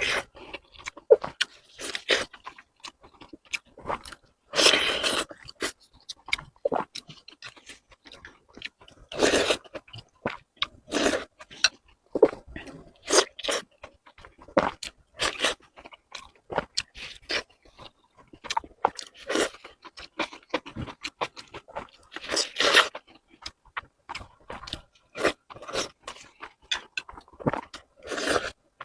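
Close-miked eating: crunchy, wet chewing and biting with irregular mouth clicks and smacks throughout, and a few longer, louder bursts about 5, 9 and 23 seconds in.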